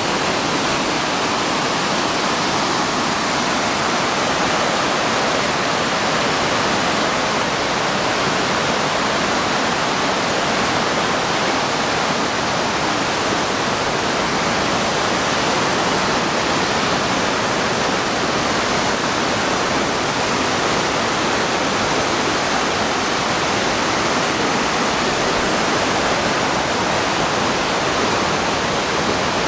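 A waterfall: water falling and crashing in a loud, steady rush.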